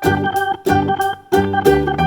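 Background music: keyboard chords over a steady beat.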